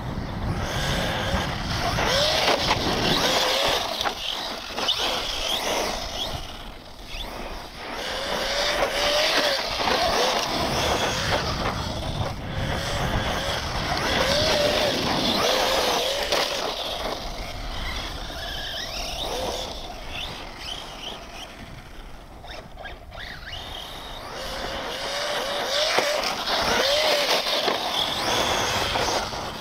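Brushless electric RC truck being driven hard on dirt: the motor whine rises and falls in short bursts of throttle, over the hiss and scrabble of tires sliding on loose ground. It swells and fades several times as the truck passes.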